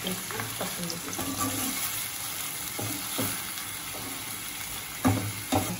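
Marinated chicken pieces sizzling in oil in a nonstick pan as a steel spoon stirs them, with scattered scrapes and clicks of the spoon against the pan. Two louder knocks come about five seconds in.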